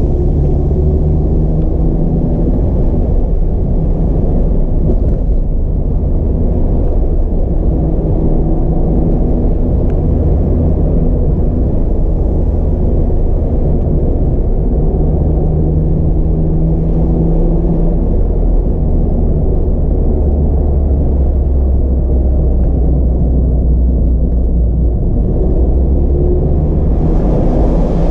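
Low, steady rumble of a Mazda MX-5 RF's four-cylinder petrol engine and tyre noise heard from inside the car while driving, the engine note shifting in pitch now and then. Near the end a brighter road hiss builds as the car enters a rock tunnel.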